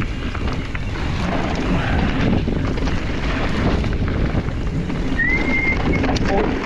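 Wind buffeting the camera microphone as a mountain bike rolls along a dirt trail, a steady rumbling noise. About five seconds in a brief high squeal rises and then holds, followed by a few light clicks.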